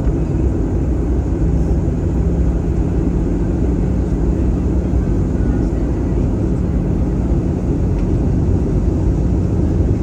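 Airliner cabin noise during the descent: a steady low rumble of engine and rushing air heard from inside the cabin, with a faint steady hum underneath.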